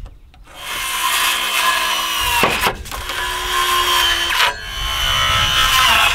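Handheld circular saw running and cutting across a wooden board: a steady motor and blade whine over dense sawing noise, starting about half a second in, with two brief breaks about two and a half and four and a half seconds in.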